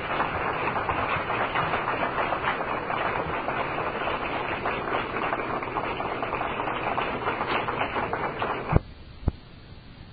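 Audience applauding, a dense, even clatter of many hand claps, cut off abruptly near the end with a click, then another click and faint hiss.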